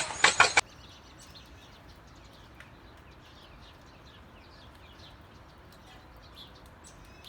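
A few sharp clicks and rattles, cut off suddenly after about half a second, then faint birds chirping now and then over a quiet outdoor background.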